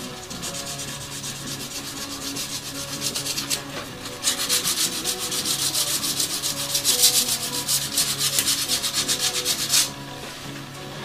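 Hand sanding of thin fretsawn brass cutouts with a small abrasive pad, rapid back-and-forth scratchy strokes at about five a second, smoothing and polishing the cut brass. The strokes grow louder from about four seconds in and stop abruptly about a second before the end.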